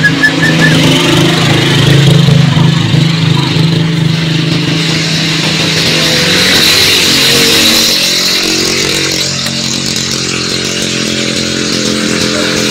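An engine running steadily, its tone changing about halfway through.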